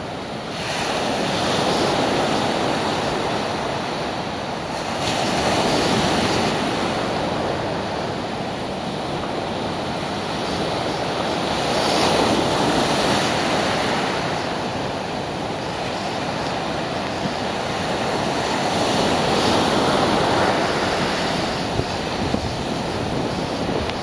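Heavy surf breaking on a beach: a loud, steady rush of waves that swells and eases every few seconds.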